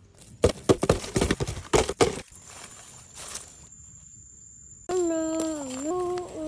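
A quick run of clicks and rustles, then, about five seconds in, a high voice held on a pitch that dips and rises.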